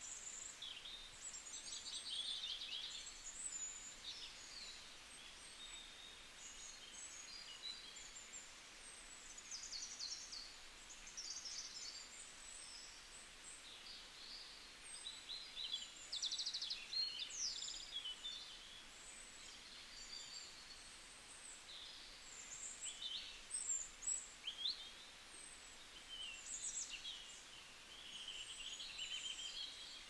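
Songbirds chirping and trilling, many short high calls overlapping one another, over a faint steady hiss.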